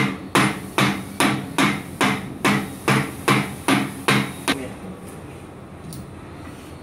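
Rubber mallet striking the steel pay-off shaft of a cable cutting machine's pay-off stand, driving the tight-fitting shaft home. About a dozen evenly spaced blows, a little over two a second, that stop about four and a half seconds in.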